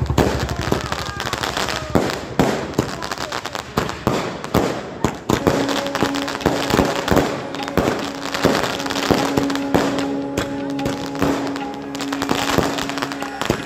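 Fireworks going off: a dense, irregular run of sharp bangs and crackling from bursting firecrackers and crackling star shells.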